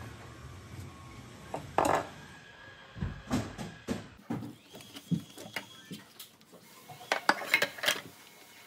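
Dishes and utensils clinking and knocking in a kitchen sink as they are washed by hand, with a quick run of knocks near the end. A low steady hum underneath cuts off about four seconds in.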